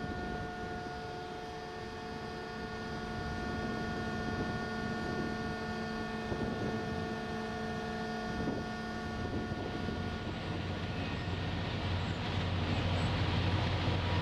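Steady machinery hum of a Great Lakes freighter's engines, heard from the ship, holding several fixed tones. About ten seconds in it gives way to a louder rushing noise with a low rumble.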